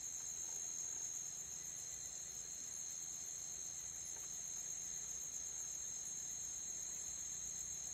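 Crickets trilling steadily, a continuous high-pitched chirring of night insects.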